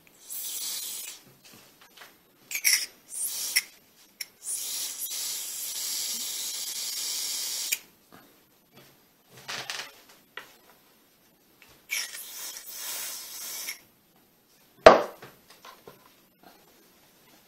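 Aerosol Teflon/silicone lubricant spray hissing in several bursts onto a paper towel of small ball bearings, the longest burst about three seconds. A single sharp knock sounds near the end.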